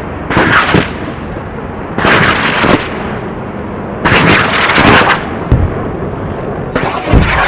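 A series of four loud explosion-like blasts about two seconds apart, each lasting up to about a second, over a steady rushing noise.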